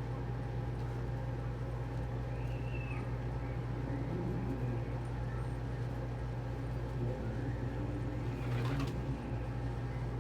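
Domestic pigeons cooing softly over a steady low hum, with a brief rustle near the end.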